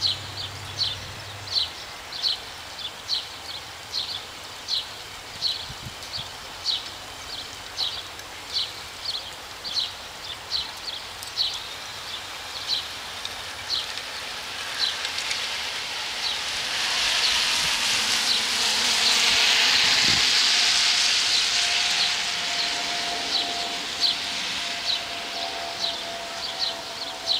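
A short, high chirp repeating steadily, a little more than once a second. Midway, a broad hiss from a vehicle's tyres on the wet road swells up and fades away.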